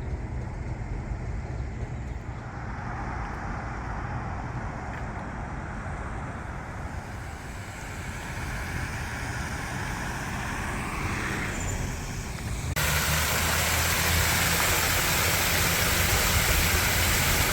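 Road traffic passing: the steady hiss and rumble of cars driving by on a city street, swelling as vehicles pass. Near the end the noise turns abruptly louder and hissier.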